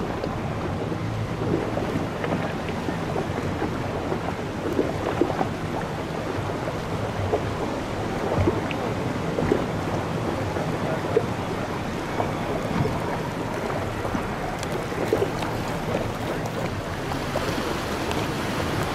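A small boat's engine running steadily under a constant wash of water splashing against the hull and wind on the microphone, with occasional sharper splashes.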